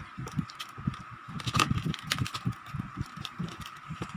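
Crispy deep-fried pork hock skin crackling and crunching as hands pull the leg apart, with irregular sharp cracks over low rustling and handling. A faint steady whine runs underneath.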